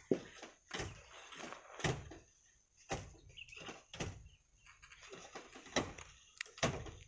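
Long pole jabbing at a sand-and-rock cliff face to loosen it. Each strike gives a sharp knock, about one a second.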